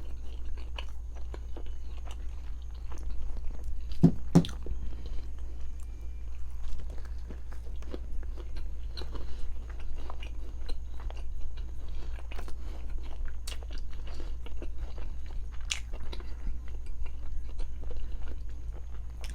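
Close-miked chewing and biting of food, with many small irregular mouth clicks and a louder double click about four seconds in, over a steady low hum.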